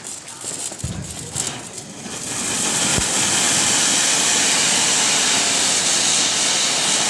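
Ground fireworks fountain spraying sparks: a steady, loud hiss that swells up about two seconds in and holds. Before it there is lighter crackling and a low thump.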